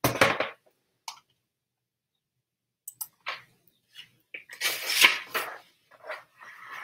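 Paper pages of a hardcover picture book rustling as they are flipped and handled: a burst at the start, a single click about a second in, a short quiet gap, then several rustles from about three seconds on, the loudest about five seconds in.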